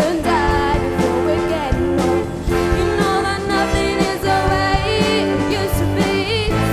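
Live pop band playing: drum kit, bass guitar and keyboards with a brass section of trumpets and trombones, and a female lead vocal.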